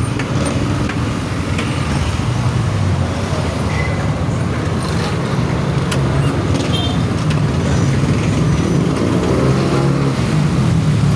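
Electric golf cart travelling on a road: a steady low hum with tyre and road noise.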